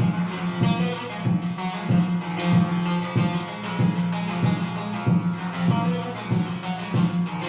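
Divan saz, a large long-necked bağlama with a carved one-piece bowl, being played: steady rhythmic strumming of ringing strings, with strong strokes at regular intervals over a sustained drone.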